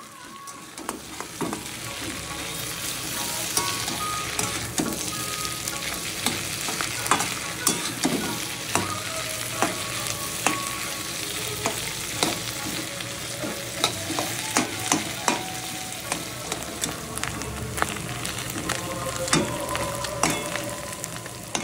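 Sliced bitter gourd sizzling in hot oil in a metal wok, with a metal spatula stirring it and clicking and scraping against the pan many times. The sizzle grows louder over the first few seconds.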